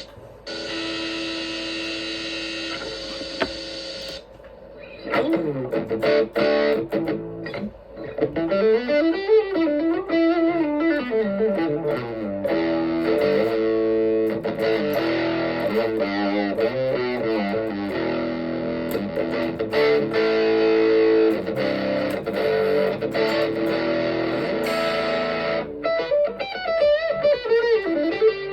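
Electric guitar played through effects: a chord rings steadily for about four seconds, then a stretch of quick runs with notes sliding up and down in pitch.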